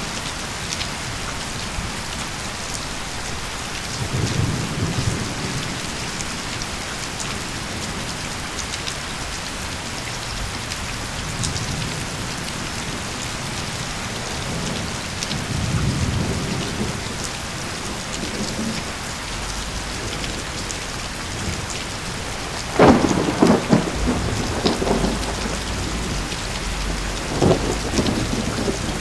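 Steady rain with a thunderstorm: low rolls of thunder about 4 and 15 seconds in, then a sharp, crackling thunderclap about 23 seconds in, the loudest moment, and a smaller crack near the end.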